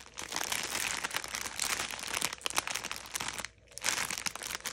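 Clear plastic bags of diamond painting drills being handled, the plastic crinkling in quick irregular crackles, with a short pause about three and a half seconds in.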